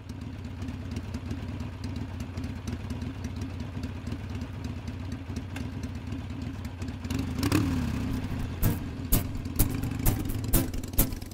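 An engine idling with a steady low pulse, revving briefly about two-thirds of the way in, then sharp knocks about twice a second near the end.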